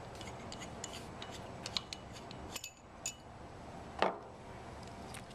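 Light metallic clicks and clinks of a stainless-steel sampler valve and its fittings being handled as the shroud is slid off it, with one louder knock about four seconds in.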